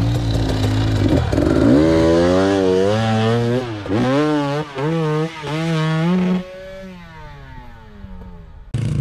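Enduro dirt-bike engine revving hard under load on a hill climb, rising and falling in pitch, with several short throttle blips about four to six seconds in. The revs then fall away and the sound drops in level as the throttle is closed, before a sudden jump in sound just before the end.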